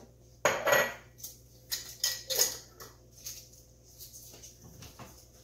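Home-dried bay leaves and their container being handled and opened: a series of short crinkly rustles and light clicks, loudest about half a second in, then thinning out.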